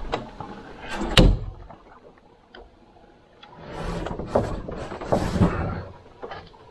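Carbon/kevlar canoe hull knocking and scraping against rock as it is carried through a tight gap between boulders: one sharp knock about a second in, then a longer run of scraping and rubbing with a few knocks around four to five seconds in.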